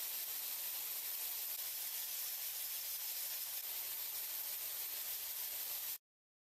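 A steady, even hiss, strongest in the high treble, that cuts off suddenly about six seconds in.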